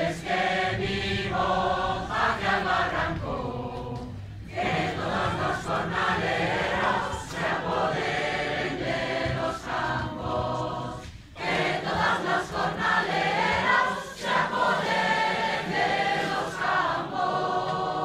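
Large mixed choir of amateur men's and women's voices singing together, with two short breaks for breath, about four and eleven seconds in.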